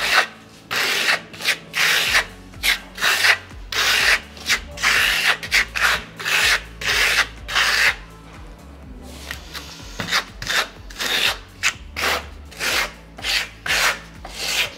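Steel plastering trowel scraping in quick repeated strokes as it spreads a thin, tight coat of siloxane decorative coating over a board, as for a fine marmorino stucco. There is a brief pause a little past the halfway point.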